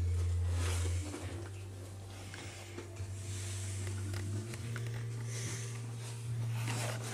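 Cardboard box and crumpled packing paper rustling in several short bouts as a cat moves about in and on the torn box, over a steady low hum.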